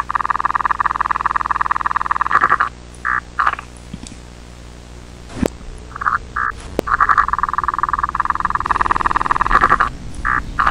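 A buzzy, rapidly fluttering electronic tone, like a trill: it sounds for a couple of seconds, breaks into two short beeps, drops out to a faint hum with a couple of sharp clicks, then two more beeps, a longer stretch of the tone, and two final beeps.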